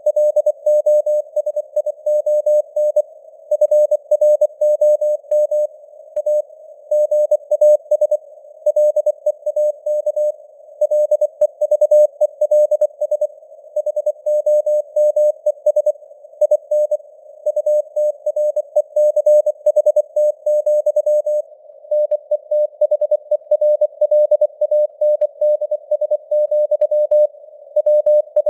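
Morse code (CW) at 24 words per minute: a single tone keyed rapidly on and off in dots and dashes. The tone sits in simulated radio band noise, and its strength fades up and down (QSB).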